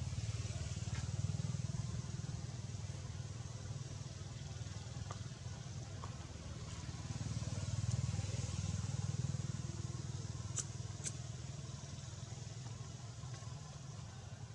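Low rumble of distant motor traffic that swells and fades twice, with two short sharp high ticks about ten and eleven seconds in.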